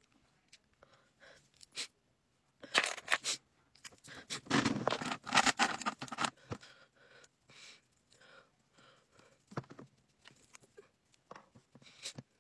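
Makeup items and containers being handled on a desk: scattered sharp clicks and taps, with a longer stretch of scraping and rustling a few seconds in.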